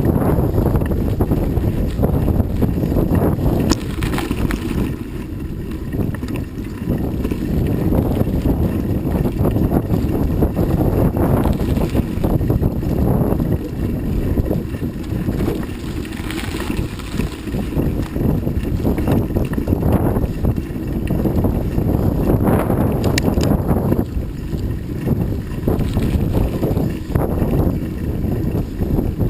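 Wind buffeting the microphone while riding a bicycle: a steady low rumble that swells and eases.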